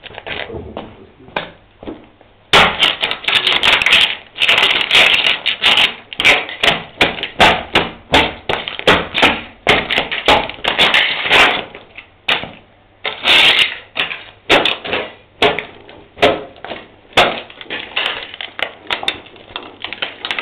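Broken glass and plastic debris being crushed on a concrete floor: a long, irregular run of sharp crunching cracks, getting much louder about two and a half seconds in.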